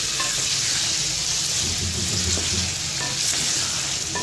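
Chicken pieces sizzling in hot oil in a metal karahi, with a steady hiss, while a wooden spatula stirs them and now and then scrapes or knocks lightly against the pan.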